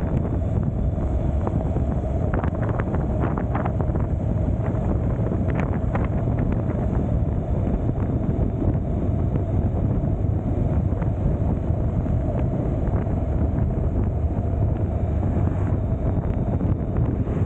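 Wind buffeting the microphone on a moving motorcycle, over a steady low road and engine rumble, with a run of short sharp ticks a couple of seconds in.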